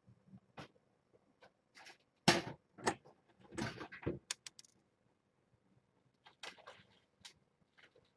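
A series of short knocks, clatters and scrapes of things being handled, the loudest cluster about two to four seconds in and a few more around six to seven seconds.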